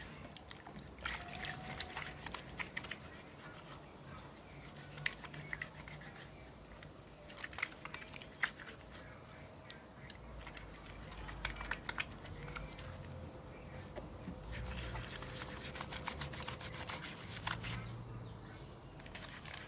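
Wet hands working a bar of handmade clay soap into a lather: soft wet squelching with many small crackles and clicks of suds, and some dripping water.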